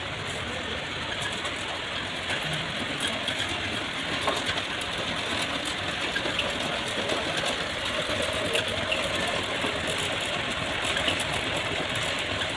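Belt-driven rope-making machine running: a steady mechanical whir and rattle with small scattered ticks, growing a little louder about a third of the way in.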